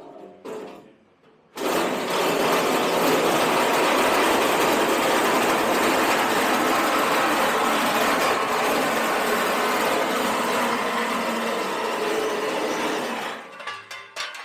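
A power tool runs steadily for about twelve seconds, starting suddenly a second and a half in and cutting off near the end.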